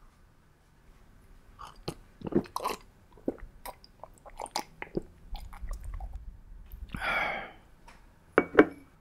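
A man drinking from a cut-crystal tumbler, heard up close: a run of wet sipping and swallowing clicks with light contact of glass at the lips, then a long exhale after the drink. Two sharp knocks near the end.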